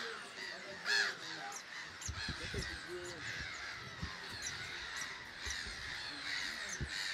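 A grey-headed gull colony calling: many short, harsh calls overlapping throughout, loudest about a second in. A few low thuds sound around two to four seconds in and again near the end.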